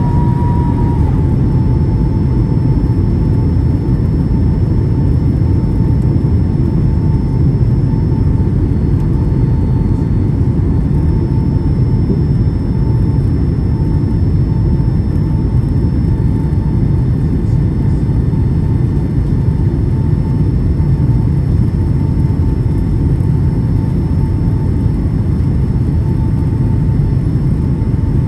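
Steady cabin roar of a Boeing 757-200 on approach, engines and airflow heard from a window seat with the flaps extended. A faint, steady high whine runs through the low rumble.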